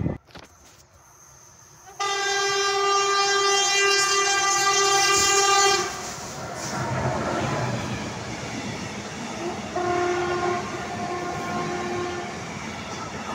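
Horn of a Pesa Gama 111Eo electric locomotive (111Eo-007) sounding one long, loud blast about two seconds in, then a shorter, quieter blast about ten seconds in. Between and after the blasts comes the rumble and wheel clatter of the locomotive and its container wagons passing.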